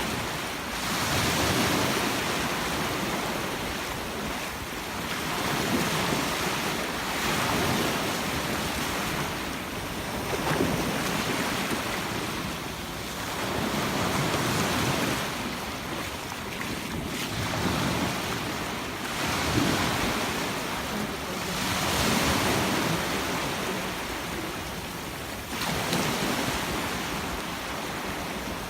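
Sea surf breaking on a beach, the rush of the waves swelling and falling back about every four seconds, with wind buffeting the microphone.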